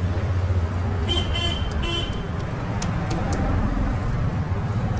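Steady low rumble of road traffic, with two short vehicle-horn beeps in quick succession just after a second in.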